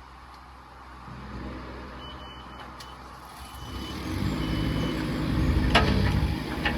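Takeuchi TB216 mini excavator's 3-cylinder Yanmar diesel running and growing louder from about halfway through, with a few short high beeps about a second apart from a warning alarm. Sharp clanks come near the end.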